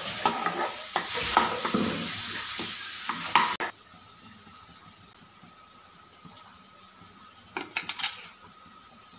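Spatula stirring and scraping onion-tomato masala frying in a non-stick kadai, with sizzling and sharp knocks of the spatula against the pan. The stirring cuts off suddenly a few seconds in, leaving a faint sizzle, and near the end a short clatter as mushroom pieces are dropped into the pan.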